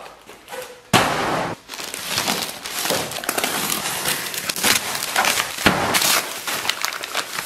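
Packing tape ripping and a foil insulated bag crinkling as a parcel is torn open by hand: a loud rip about a second in, then dense crackling rustle.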